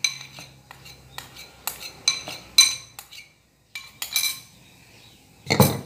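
Metal spoon clinking and scraping against a ceramic bowl while flour is scooped out: short ringing clinks about every half second, then a louder knock near the end.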